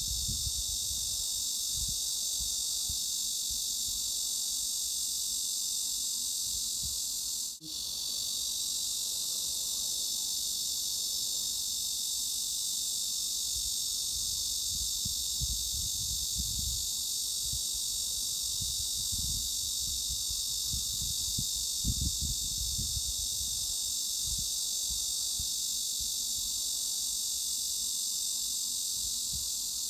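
Steady, high-pitched cicada drone used as a tinnitus masking sound, with faint, irregular low rumbles underneath. It drops out briefly about seven and a half seconds in, then resumes.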